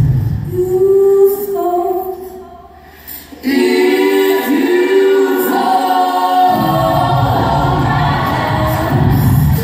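An a cappella vocal group singing in harmony, unaccompanied. The voices fade almost away a little before halfway, come back in together, and the low bass part rejoins about two-thirds of the way through.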